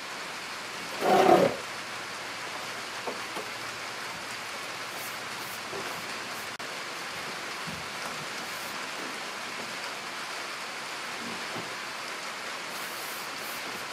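Steady rain, an even hiss, with one brief loud noise about a second in and a few faint knocks later.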